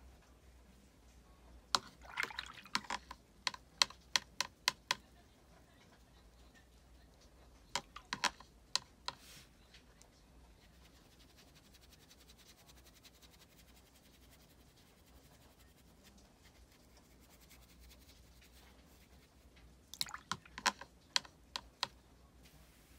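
Three short runs of quick, light clicks and taps, the first a rapid string of about a dozen, then a few more, then another quick string near the end, over a faint steady hiss.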